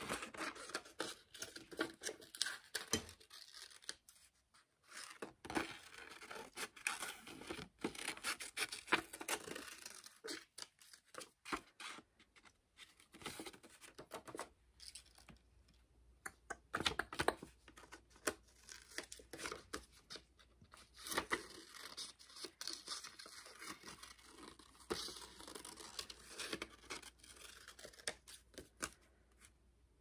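Glossy magazine paper being torn and handled: irregular rips, crinkles and rustles, stop-start through the whole stretch.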